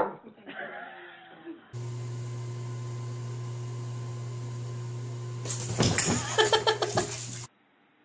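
A steady motor hum, with a flurry of irregular splashing and scrabbling noises over it about two-thirds of the way through, as a cat at a bubble bath meets the water.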